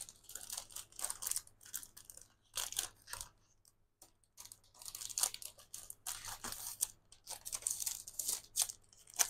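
Scrapbook paper being handled: a string of short, uneven rustles and crinkles as sheets and packaging are shuffled and moved, with a brief pause about four seconds in.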